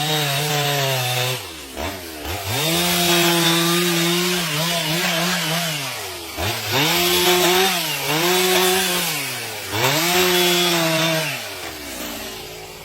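Two-stroke chainsaw cutting wood, the engine at high revs with the rasp of the chain through the timber. Its pitch dips and climbs back about three times as it bogs under load and frees up. Near the end it drops to a quieter idle.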